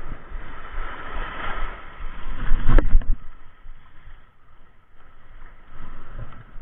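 Surf washing in and wind buffeting the microphone, loudest in a gust a little under three seconds in, with one sharp click at its peak.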